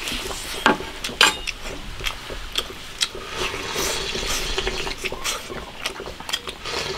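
Close-up mukbang eating sounds: chewing mouthfuls of soft fish slices and soup-soaked rice, with short clicks of chopsticks against a bowl and a stretch of wet, hissy slurping in the middle.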